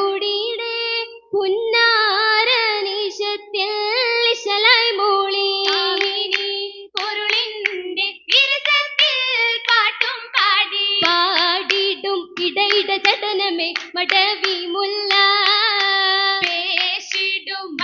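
Oppana: a group of girls singing a Malayalam Mappila song together, with the dancers' hand claps falling in time with the song.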